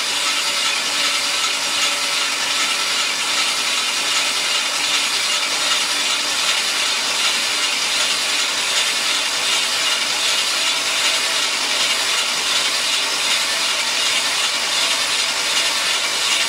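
Starter motor cranking a 5.3 L LM7 iron-block V8 over steadily with its spark plugs out and no fuel, a continuous whir: the engine is being spun to prime the oil system and build oil pressure.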